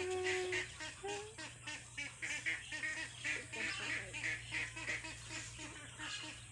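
Birds calling over and over in the background, a quick series of short calls about three a second, with a single held call fading out about half a second in.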